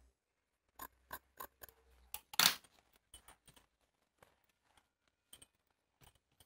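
Large steel tailoring scissors cutting through paper canvas and cloth: a run of short snips about a second in, then one louder, longer cutting stroke in the middle, followed by a few scattered light clicks.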